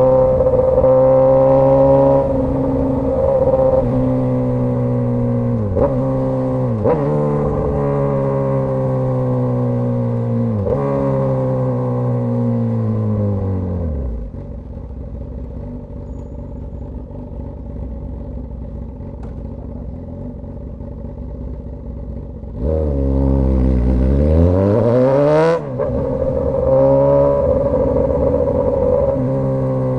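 Straight-piped Suzuki GSX-S1000 inline-four exhaust, loud. The revs fall in several steps as the bike slows and settle to a low idle about halfway through; then a hard rising rev near the three-quarter mark cuts off sharply at a gear change, and the engine runs steadily again near the end.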